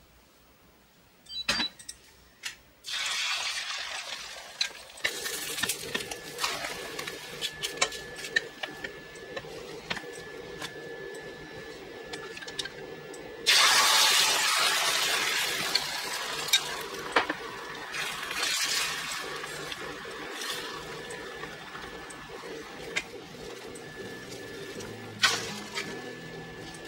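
Hot olive oil sizzling in a stainless steel frying pan, with a few clinks of the pan on the cooktop. About halfway, beaten egg is poured in and a much louder sizzle starts, then slowly settles as the thin egg sheet fries.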